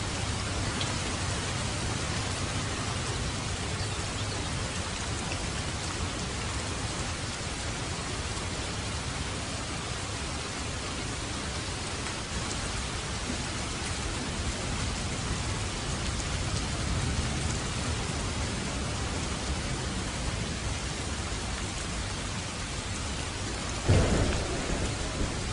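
Steady rain falling, with a low rumble underneath. Near the end, a sudden loud clap of thunder.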